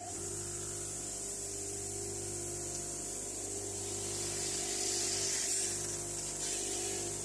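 Electric wire wheel running steadily with a hum, its wire bristles hissing as they scrub rust and scum off an old Stillson pipe wrench; the hiss grows louder about five seconds in as the work is pressed harder into the wheel.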